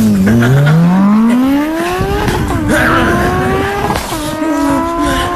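Chihuahua giving a drawn-out, angry growling howl: a long tone rising in pitch over the first two seconds, then held steady, breaking off and starting again twice.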